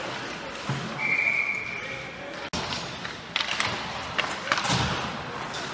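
Ice hockey game sounds: one steady, high whistle blast lasting about a second and a half, then several sharp clacks of sticks and puck and low thuds off the boards in the second half.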